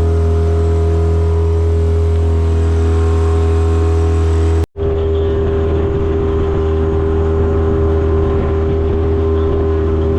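A boat's outboard motor running steadily at constant speed, with a low, even drone. About halfway through it drops out for an instant and comes back slightly rougher.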